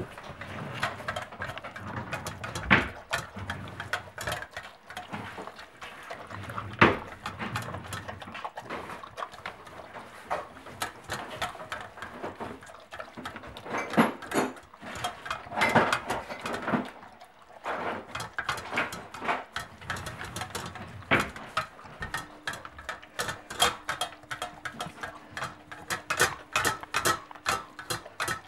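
A pet eating from a food bowl in a metal stand: irregular small clicks and smacks of chewing, coming faster and more evenly in the last few seconds, with a few louder knocks.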